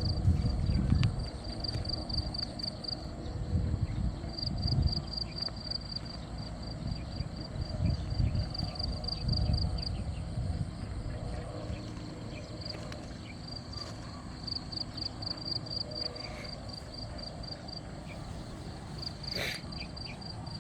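High-pitched pulsing insect trill, stopping and starting in runs, over uneven low rumbling noise, with one sharp click near the end.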